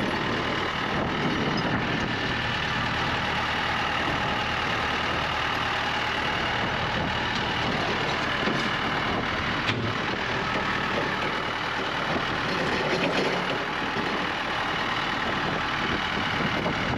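A vehicle engine idling steadily, with a single sharp click about ten seconds in.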